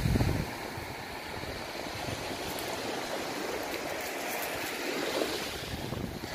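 Steady wash of sea surf on a pebble shore. A gust of wind buffets the microphone in the first half second.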